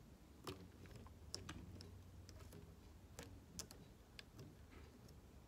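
A wooden craft stick striking paint-covered rubber bands stretched around a cardboard box lid, flicking paint onto the box: a scatter of faint, uneven ticks and snaps.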